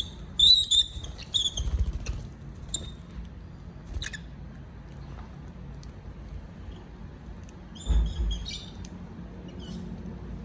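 Young lovebirds giving short, high squeaky chirps in two clusters, one at the start and one about eight seconds in, with a couple of dull bumps among them.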